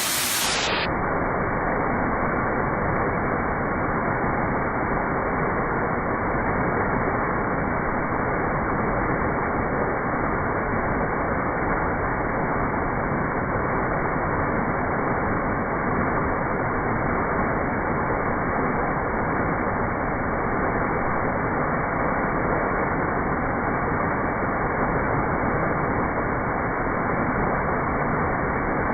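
Waterfall's rushing water: a steady, unbroken rush with no high hiss, slowed down along with the slow-motion picture.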